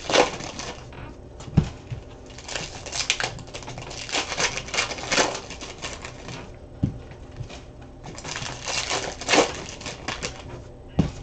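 Trading card packs being torn open and handled: plastic wrappers crinkling and cards rustling in repeated bursts, with a few sharp taps on the table.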